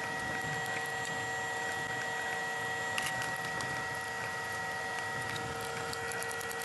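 A steady background hum made of several constant tones, with faint scattered clicks and rustles of wiring and spade terminals being handled.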